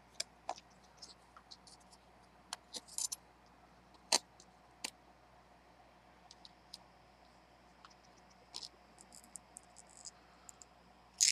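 Steel kitchen knife blade prying at the edge of an AMD FX-9590 processor's metal heat spreader, making scattered light clicks and scrapes as it is worked loose corner by corner. One click about four seconds in stands out, and there is a louder cluster at the very end.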